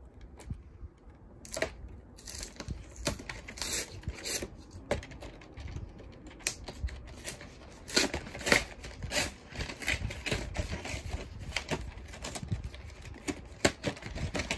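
Packaging of a cardboard Pokémon card collection box being torn, crinkled and worked open by hand, with many irregular clicks and taps.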